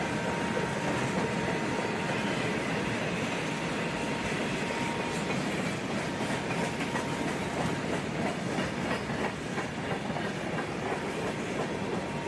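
Freight train of boxcars and covered hoppers rolling past at a steady pace: an even rolling noise of the steel wheels on the rails, with many small clicks and clatters of wheels over the track.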